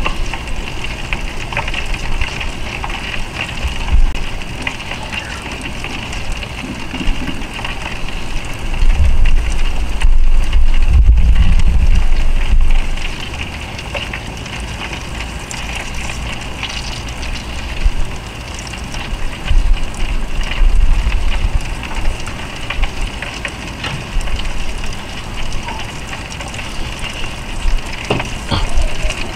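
Salmon fillet sizzling in butter in a foil pan on a barbecue grill, a steady hiss. A loud low rumble comes in about nine seconds in and fades out about four seconds later.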